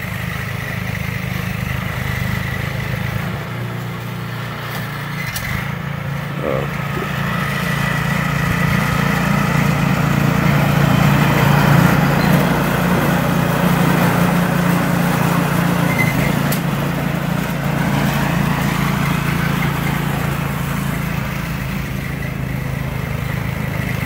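John Deere DRS-27 snowblower fitted with a Princess Auto replacement engine, running steadily as it works through deep snow. The engine sound grows louder about ten seconds in, then eases off slightly.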